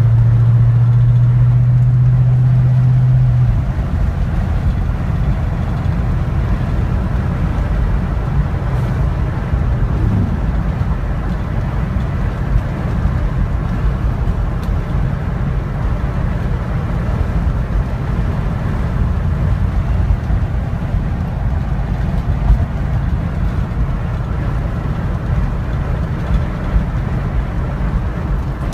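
1990 Ford Mustang GT's 5.0-litre V8 and road noise heard from inside the cabin while driving: a steady engine drone that drops away about three and a half seconds in, leaving a low rumble of engine, tyres and wind.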